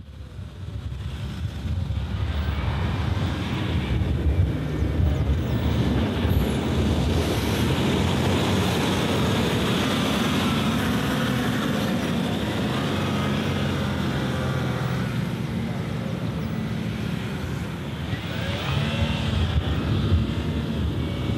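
Land Rover 4x4 engines running under load as the vehicles climb through soft sand, fading in at the start and then holding a fairly even level.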